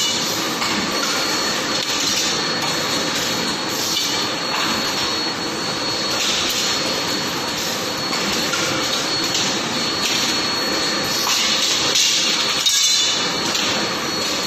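Laser welding machine running continuously on aluminium: a steady rushing hiss with a thin high whine, and a brief louder crackle about twelve seconds in.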